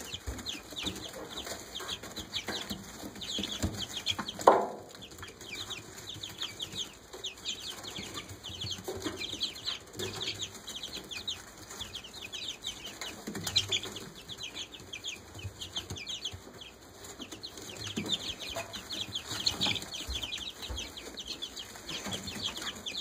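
A brood of young chicks peeping constantly, many short high peeps overlapping. There is one loud thump about four and a half seconds in.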